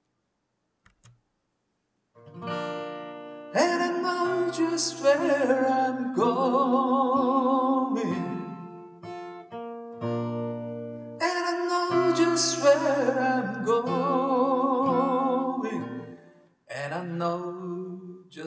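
Music: acoustic guitar with a wavering sung melody, starting after about two seconds of near silence.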